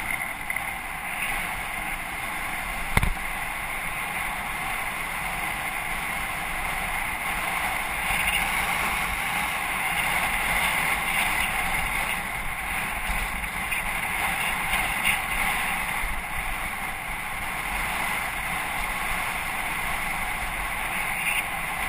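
Steady rushing noise of a mountain bike ride: wind over the microphone mixed with tyres rolling on a dirt trail. One sharp knock comes about three seconds in.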